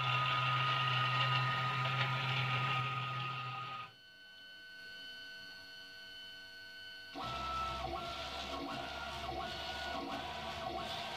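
Stepper motors of a DIY aluminium H-Bot 3D printer. First the Z axis drives the bed on its 12 mm ballscrew and brass bushings, a loud steady machine noise with a low hum, until it drops suddenly to a quieter steady whine about four seconds in. From about seven seconds the gantry shuttles rapidly back and forth, a whine that repeats about twice a second.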